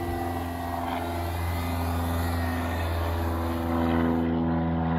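Small quadcopter drone's propellers buzzing as it hovers low and descends onto its landing pad; the pitch of the motors shifts as it slows and settles.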